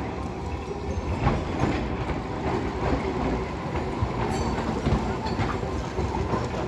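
Vintage Hiroden streetcar No. 602 rolling slowly through a track junction with a steady low rumble, its wheels clacking now and then over the rail joints and crossings.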